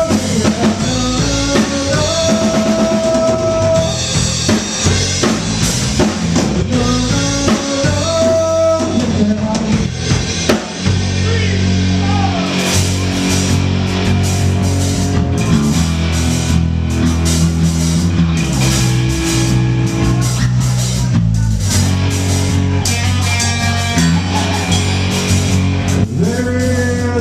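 Live rock band playing an instrumental passage on drum kit, electric guitar and bass. Long held melody notes ring out in the first ten seconds, and from about twelve seconds in the drums and cymbals play busier and harder over a heavy bass line.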